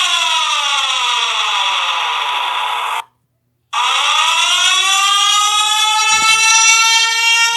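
Wildfire warning siren winding down in pitch, cutting out abruptly about three seconds in. After a short silence it winds back up and then holds a steady wail.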